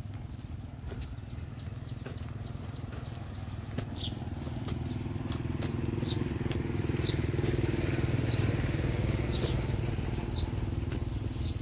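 A small engine running steadily, growing louder through the middle and then easing off, with short high chirps about once a second and scattered clicks.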